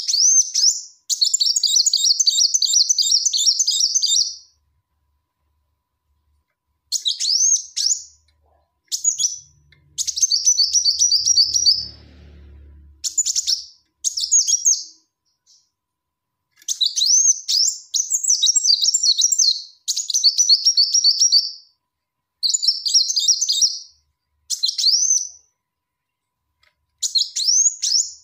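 Female Kolibri Wulung sunbird calling: about a dozen short, high-pitched twittering phrases, each a quick run of sharp chirps, separated by brief pauses.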